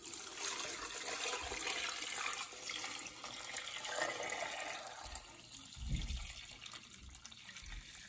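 Water pouring from a plastic gallon jug into a stainless steel stockpot onto a turkey carcass and vegetables: a steady splashing stream that weakens in the second half.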